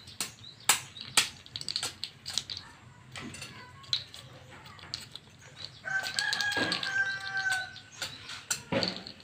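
Small plastic Rubik's cube pieces clicking and skittering on a concrete floor as kittens bat them about. About six seconds in, a rooster crows once for about two seconds.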